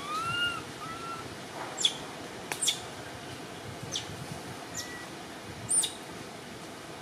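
Baby long-tailed macaque giving two short, arched, whistle-like cries in the first second, calling for its absent mother. Sharp, quick high chirps sound every second or so after that, the loudest about two and six seconds in.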